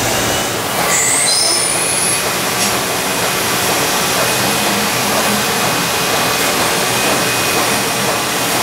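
Nakamura 5-axis CNC lathe machining 360 brass: a steady loud rushing machine noise. A high whine rises about a second in, and a thin steady high tone holds after that.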